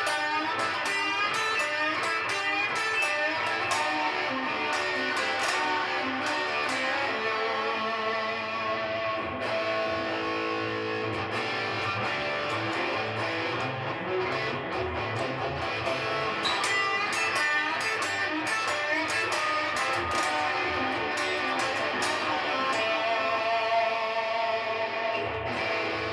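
Electric guitar playing a blues-rock lead lick slowly, a run of picked notes with a few longer held notes.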